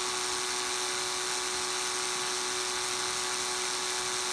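Electric drill with a 1/8-inch bit running slowly, a steady whine, as it bores into the plastic case of a DBPower T20 projector.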